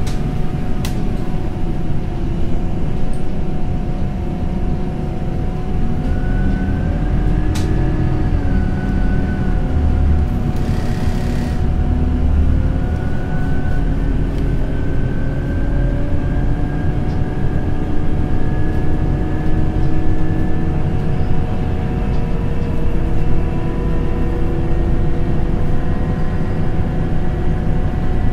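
Cabin sound of a Scania Citywide LFA articulated CNG bus in service: a steady low engine and road rumble with whining tones that slowly rise and fall in pitch. A brief hiss about eleven seconds in and a couple of sharp clicks.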